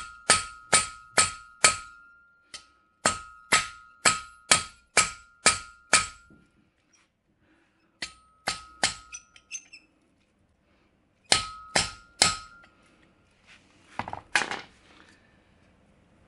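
Hammer blows on the spine of a 1095 carbon steel knife blade, driving its edge into a clamped mild steel rod. Each blow is a sharp metallic clang with a short ring, about two to three a second, in four runs separated by brief pauses, followed by a few softer knocks near the end.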